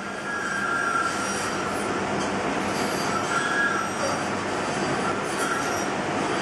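Knife paring and scraping a wooden Dala horse blank, a continuous rasping of the blade through the wood, with short squeaky tones that come and go as it cuts.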